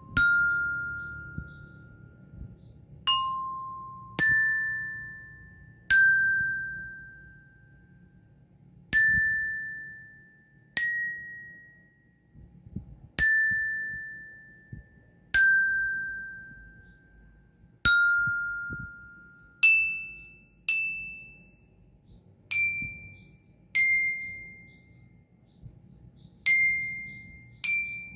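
Bell lyre (marching-band glockenspiel with metal bars) struck with a mallet one note at a time: a slow melody of about fifteen single notes, each ringing out and fading before the next.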